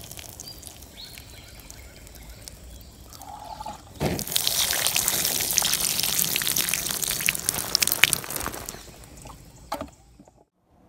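Water streaming through holes punched in a tin can and splashing onto wet garden soil and puddles around seedlings. The splashing is light at first, gets much louder about four seconds in, then fades away shortly before the end.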